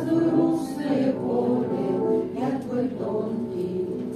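A slow song sung over electric piano accompaniment, the notes held long and the melody moving from one held note to the next.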